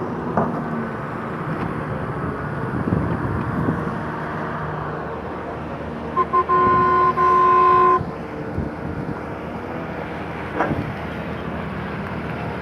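A vehicle horn sounds two quick short toots, then a longer blast of about a second and a half, around six seconds in. Steady engine and traffic noise runs underneath.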